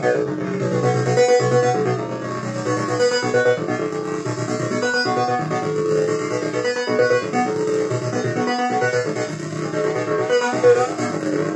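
Korg Volca Bass synthesizer playing a sequenced run of short, pitched notes, fed through a DL 301 digital delay line.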